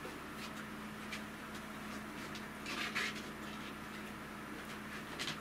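Chopsticks working noodles from a cooking pot into a stainless sierra cup: soft scraping and light clicks on the metal over a faint steady hum, with a short louder rasp about three seconds in and a few quick clicks near the end.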